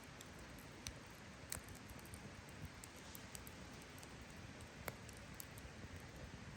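Campfire burning quietly: a faint steady hiss with scattered sharp crackles and pops of the wood, the loudest about a second and a half in and again near five seconds.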